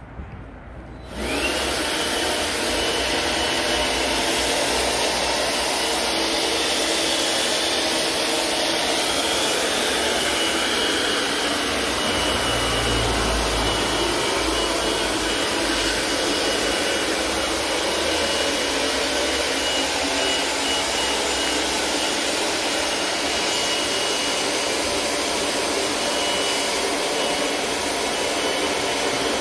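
Cordless electric air pump switching on about a second in and running steadily with a thin high whine, pumping air into the tubes of an inflatable boat.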